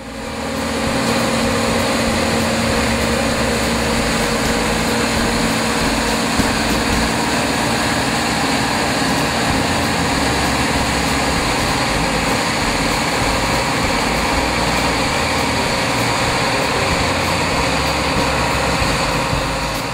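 John Deere combine harvester working a grain field: a steady drone of its engine and threshing machinery with a constant hum, fading in over the first second.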